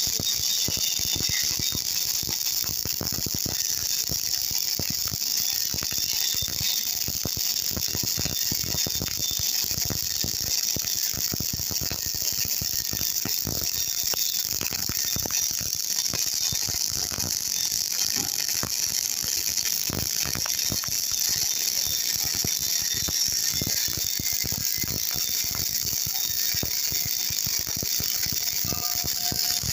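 MIG welding arc crackling steadily: a dense, unbroken run of rapid sharp pops over a hiss.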